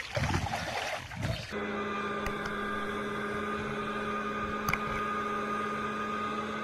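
Brief splashing of water, then, from about a second and a half in, a fire-brigade rescue boat's motor running at a steady speed with an even hum. A single sharp click comes near the end.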